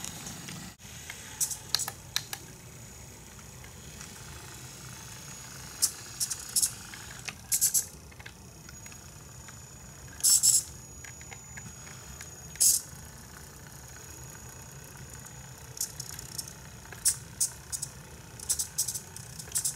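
Radio-controlled Siku Control model truck pulling a lowboy trailer: a steady low hum with scattered short clicks and rattles, and a brief hiss about ten seconds in.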